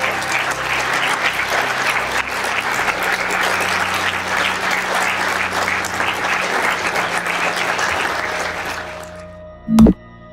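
An audience in a conference hall applauding steadily, fading out near the end. Just before the end comes a single short, loud low thump.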